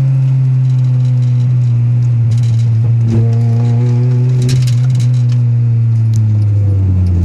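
A GSR car engine running with a misfire, its low drone slowly sinking in pitch, with a few faint clicks over it.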